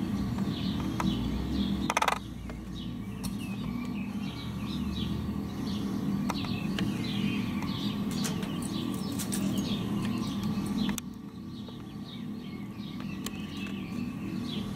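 Small birds chirping over and over in short, quick notes that fall in pitch, over a steady low hum. A short knock about two seconds in.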